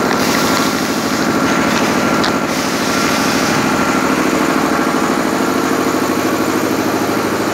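Flour packing machinery, the hopper and screw auger conveyor line, running steadily: a loud, even mechanical drone with a fast regular pulse.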